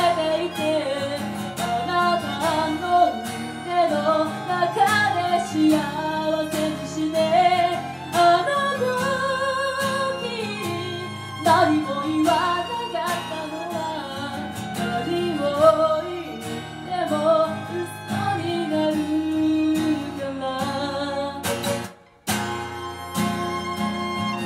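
A woman singing a slow song live to her own acoustic guitar, with a violin accompanying. The singing ends about 21 seconds in; after a sudden brief drop-out, guitar and violin play on.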